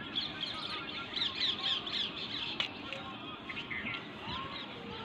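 Birds chirping: a quick run of high, downward-sliding calls through the first two seconds, with a few more later, and a single sharp click about two and a half seconds in.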